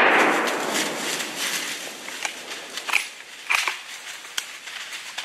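The echo of a deer-hunting gunshot rolling through the woods and fading over about two seconds, followed by scattered crackles and rustles of dry leaves.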